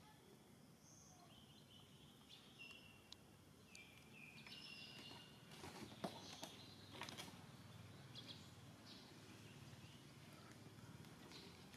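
Quiet outdoor ambience with scattered faint, short high chirps and a few soft clicks about halfway through, over a low background hum.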